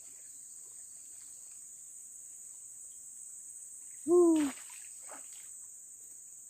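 Steady high-pitched chorus of forest insects, shrilling without a break.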